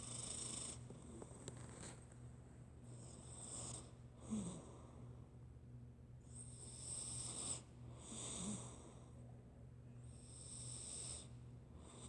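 Cat snoring softly: three slow, hissy breaths, each coming about every four seconds.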